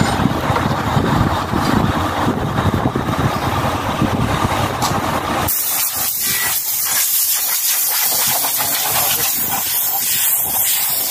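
A heavy engine runs for the first half. It cuts off abruptly about halfway in, and a compressed-air blow gun takes over with a steady high hiss, blasting caked dust out of the fins of a clogged truck radiator.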